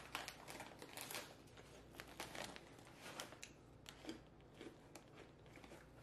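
Faint crinkling and rustling of plastic snack bags being handled and lifted out of a cardboard box.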